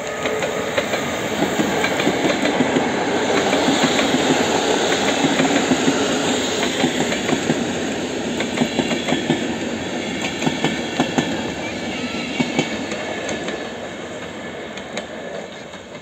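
Electric-hauled passenger train (EU160 locomotive and coaches) passing close at speed: a steady rolling rumble of wheels on rail with many sharp clacks over the rail joints. It is loudest a few seconds in and fades as the train moves away.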